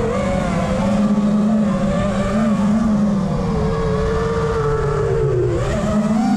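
A 5-inch FPV racing quadcopter's four Lumenier 2207 2700kv brushless motors and three-blade props whining in flight. The pitch rises and falls with the throttle, sags about five seconds in, then climbs sharply again.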